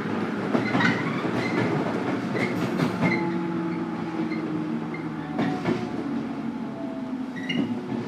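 Running sound of a JR Kyushu 103 series electric train heard from inside its motor car, KuMoHa 103-1514: a steady motor and gear hum under rail noise, with the wheels clicking over rail joints several times. The sound grows gradually a little quieter.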